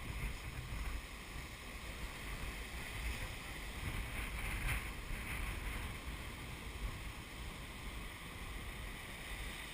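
Heavy ocean surf breaking, a steady low wash of noise, with wind on the microphone.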